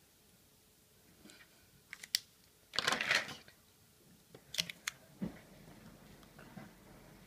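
Small handling sounds on a wooden tabletop: a couple of sharp clicks, a short rustle, more clicks and a soft knock, as a felt-tip pen is capped and put down and small scissors are picked up to cut into a plastic-wrapped cheese slice.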